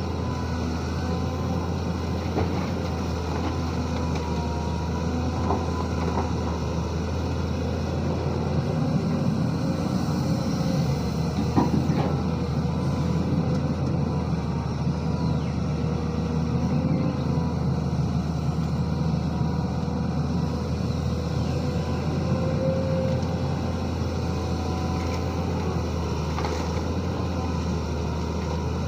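Diesel engine of a SANY SY215C hydraulic excavator running steadily at working speed while digging and loading a dump truck, with one sharp metallic knock about halfway through.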